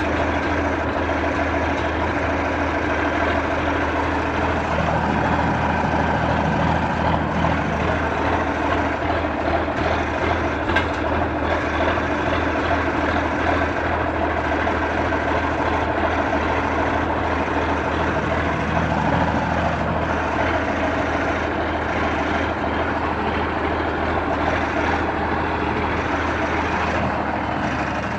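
John Deere 4630 tractor's turbocharged six-cylinder diesel running steadily under way.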